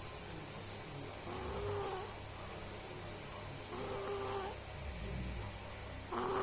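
Snoring: a pitched, whistly snore on each breath, three snores about two and a half seconds apart, the last the loudest.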